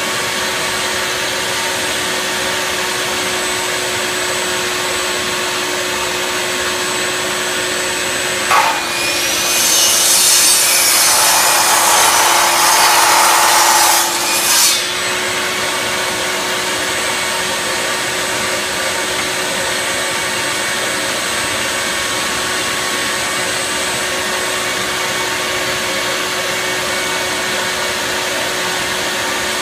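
Miter saw starting up about eight and a half seconds in with a rising whine, its blade cutting a 45-degree chamfer into the end of a thick plywood block for about six seconds, then stopping. A steady machine drone runs underneath throughout.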